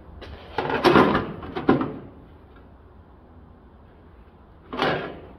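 Handmade sheet-metal quarter-panel section scraping and rubbing against the car body as it is pushed into place for a test fit: a cluster of rough scrapes about a second in and one more shortly before the end.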